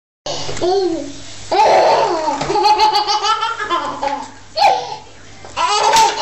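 A baby laughing in a string of high-pitched giggles and squeals.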